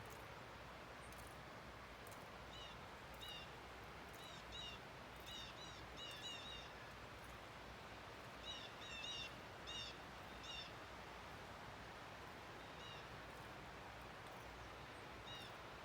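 Small bird giving short, repeated chirping calls in two bouts of several seconds each, with single calls later, over a faint steady hiss of snowy outdoor air.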